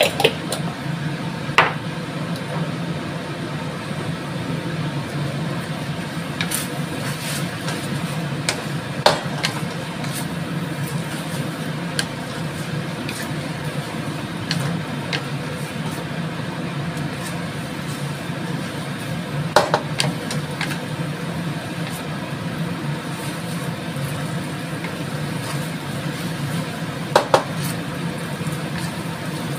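Wooden spatula tossing and stirring fried yellow noodles in a stainless steel wok, with a few sharp knocks of the spatula against the wok over a steady low hum.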